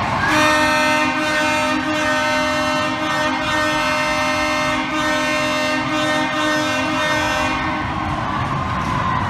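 A horn sounding one long steady chord for about seven seconds, cutting off near the end, over the noise of a cheering arena crowd.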